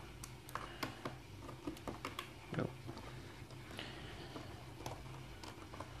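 Small screwdriver tightening a screw into the plastic underside cover of a Toshiba Satellite laptop: faint, irregular light clicks and taps as the tip works the screw and the hand shifts against the case.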